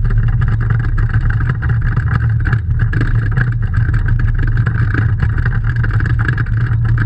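Rally car's engine running at a steady pace, heard from inside the cabin, with a constant low drone.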